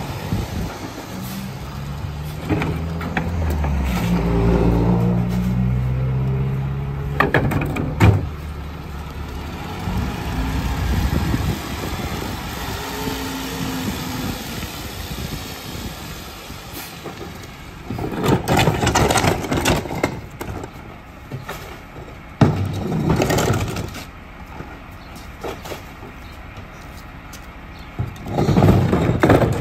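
Rear-load garbage truck running its packer cycle: the engine speeds up in steps and holds while the hydraulic packer blade sweeps and compacts the load, with two sharp metal knocks a couple of seconds in. Later come three short, loud noisy rushes and clatters.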